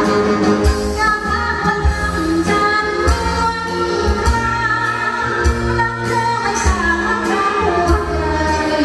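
A woman singing a Thai luk thung song into a microphone, backed by a live band of drums and horns with a steady drumbeat and cymbal strokes.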